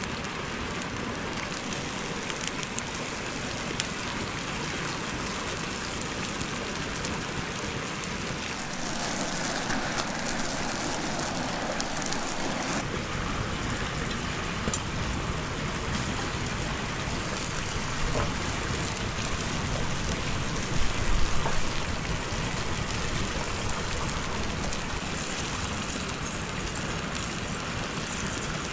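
Food frying in hot oil: a steady sizzling hiss with scattered crackles, shifting in tone a few times along the way.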